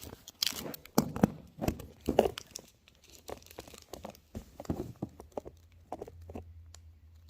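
Toy packaging being torn and crinkled by hand: a run of irregular crackles and snaps that thins out near the end.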